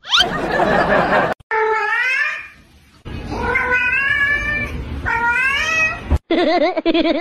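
Domestic cat meowing repeatedly for a shrimp held above it: several long, drawn-out calls that rise and bend in pitch, begging for the food. The first second is a loud noisy burst, and a lower wavering call comes near the end.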